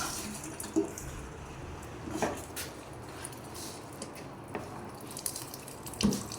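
A few scattered light knocks and clinks of hard objects being handled, four in all at irregular spacing, with faint crackling between them.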